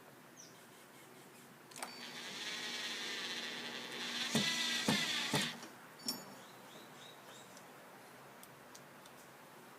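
Power drill driving a screw, its motor whining steadily for about four seconds and growing louder, with three sharp knocks near the end as it stops, then a single click.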